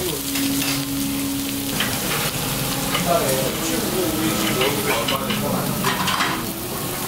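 Beef tripe, heart and onion sizzling steadily on a round metal grill pan, with a few short clinks and scrapes of metal chopsticks against the pan.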